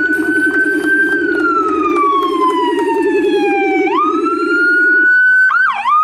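Police car sirens: an electronic wail slowly rising and falling over a fast low warble that stops about five seconds in. Near the end the wail switches to quick rising-and-falling yelps.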